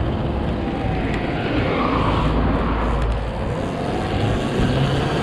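2021 Husqvarna EE5 electric kids' dirt bike being ridden in its third power mode: the electric motor runs under throttle, mixed with tyre noise on concrete and a steady low rumble.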